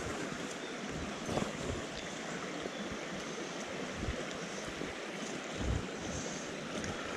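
Shallow, rocky moorland river rushing steadily over stones, with a few brief low thumps of wind on the microphone.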